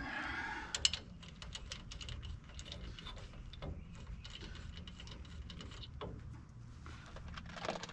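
Small metallic clicks and taps as lug nuts are run onto the wheel studs, with one sharper clack about a second in.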